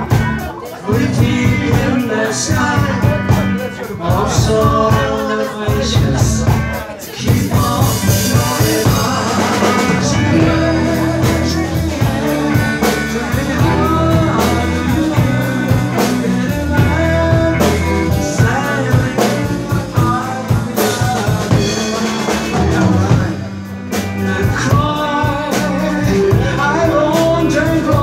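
Live band performance: electric guitar, electric bass and drum kit playing a song, with a man singing over it.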